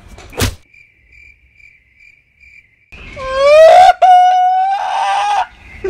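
A sharp smack about half a second in. Then, from about three seconds, a man wails loudly in exaggerated crying, his voice rising in pitch and held, broken once by a click.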